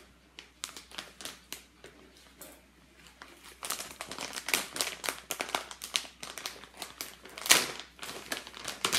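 Crinkling and crackling of a glossy plastic underwear pouch being handled and pulled open, faint at first and much louder and busier from about a third of the way in, with the loudest crackle near the end.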